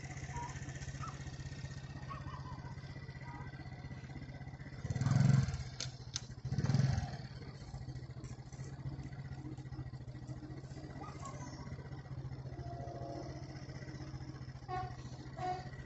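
Steady low hum of an idling vehicle engine, broken by two short dull thuds about five and seven seconds in.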